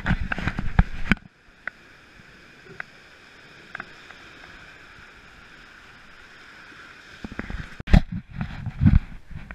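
Rushing whitewater of river rapids heard from inside a raft as a steady hiss. Sharp splashes and knocks come in the first second, and loud, irregular low thumps and bumps come near the end.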